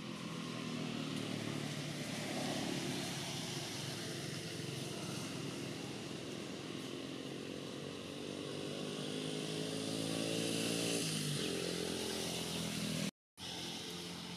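A small engine running, its pitch climbing slowly for a few seconds and then dropping suddenly about eleven seconds in. The sound cuts out completely for a moment near the end.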